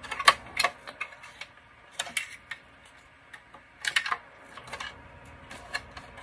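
Irregular light metal clicks and clinks as a sheet-metal 12 V power supply and its metal mounting brackets are handled and shifted, with the densest run of clicks about four seconds in.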